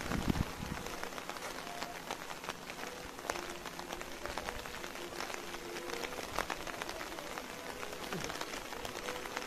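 Steady rain falling, with many scattered sharp ticks of individual drops.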